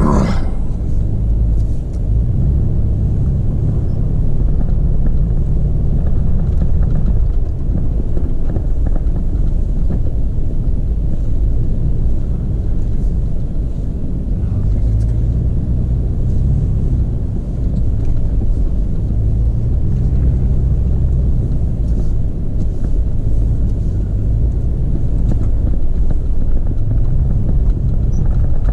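Toyota FJ Cruiser's 4.0-litre V6 and tyres rumbling as it drives over a snow-covered trail, heard from inside the cabin. The engine note swells and eases several times as the driver works the throttle.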